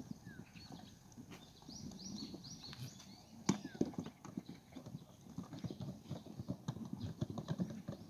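Goat hooves clattering in irregular knocks as the kids step and hop along a corrugated pipe, with one sharper knock about three and a half seconds in.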